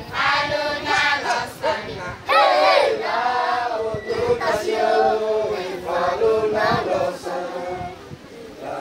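Young girls singing together in a chant-like song for the tebe, the traditional Timorese hand-in-hand line dance.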